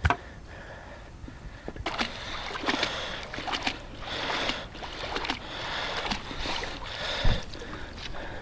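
Water splashing and sloshing in uneven bursts, as from a fishing magnet and its rope being worked through shallow water. A sharp click comes right at the start and a dull thump near the end.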